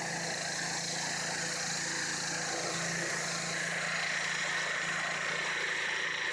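Pressure washer running steadily: a constant motor drone under the even hiss of the water spray.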